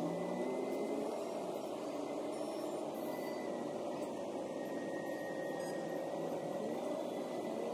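Steady background hum and hiss with no distinct events, and a faint thin high tone running through it.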